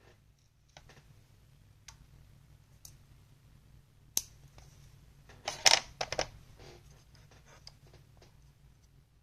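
Scattered light clicks and scratches of hands handling small laptop parts, with a short, louder rasping burst a little past the middle.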